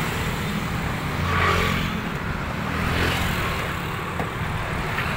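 A car driving in busy town traffic: steady engine and road rumble, swelling briefly about a second and a half in.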